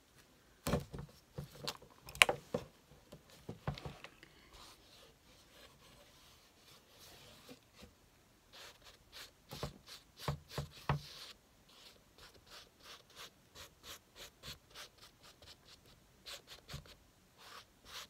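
Gloved hands rubbing and smearing wet acrylic paint across a canvas to spread it out: irregular soft rubs and smacks, turning near the middle into a run of quick, regular strokes about three a second.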